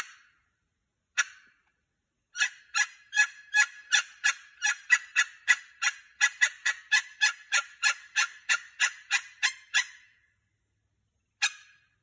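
Wild turkey yelps: a few single notes, then a long, evenly paced run of about thirty short, sharp yelps, three to four a second, that stops abruptly, with single yelps again near the end.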